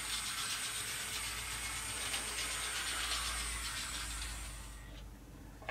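OO gauge model shunter locomotive running on the track: its small electric motor whirs with a high steady whine over a faint rapid ticking of wheels and gears. The sound dies away about five seconds in as the controller is turned down and the locomotive stops.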